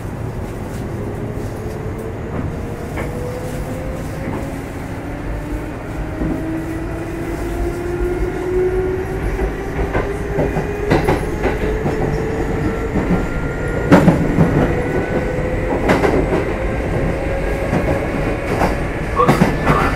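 Kintetsu 2610-series electric train car running and gathering speed, heard on board the motor car: a whine from the traction motors and gears climbs slowly in pitch over a low rumble. From about halfway through, sharp clacks of the wheels over rail joints or points come every second or two.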